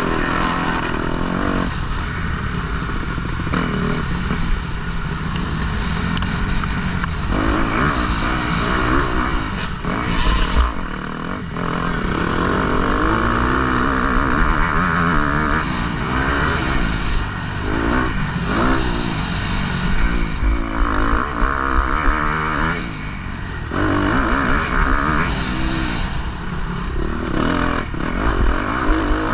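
Motocross bike engine ridden at race pace and recorded from the rider's helmet, its pitch rising and falling over and over as the throttle opens and closes and the gears change. Just after ten seconds in, a brief sharp knock cuts across it.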